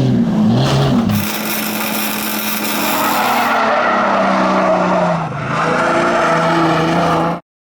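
Jeep XJ engine revving under hard throttle with the rear tyres spinning, its pitch rising and falling, and a loud hiss in the first few seconds. The sound cuts off abruptly near the end.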